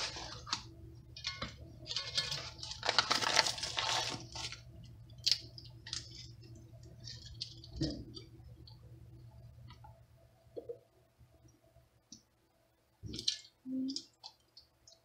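Paper pectin packet crinkling and being shaken out for the first few seconds. Then sparse small clicks and taps as a plastic lemon juice bottle is handled and its cap opened, with a short cluster of louder clicks near the end, over a faint low hum.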